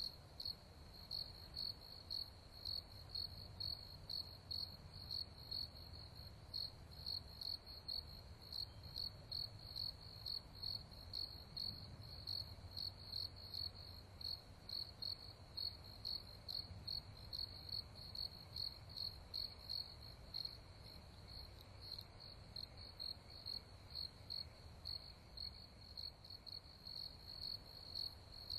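A cricket chirping steadily at night, an even run of high chirps about two to three a second, over a faint low rumble.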